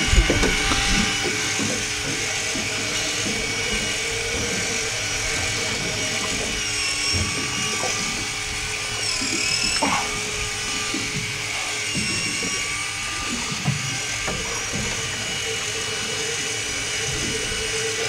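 Background music with held tones.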